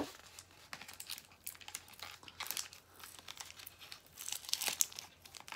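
Cardboard box packaging being handled and opened by hand: irregular rustling and crinkling with small scrapes and clicks of paperboard.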